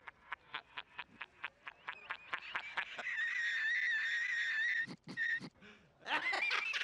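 A man laughing hysterically: a fast run of ha-ha-ha pulses, about five a second, that breaks about three seconds in into a high-pitched squealing laugh held for about two seconds, then a few short gasping bursts near the end.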